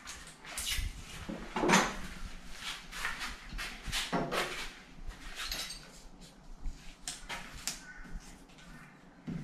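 Blue masking tape being pulled off its roll and torn in several short rips, with rustling and light knocks as it is handled and pressed onto the wall tile. The loudest rip comes about a second and a half in.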